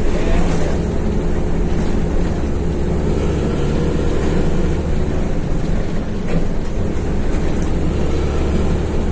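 Diesel engine of a Hino AK bus running under way, heard from inside the cabin as a steady, loud low drone with road rumble.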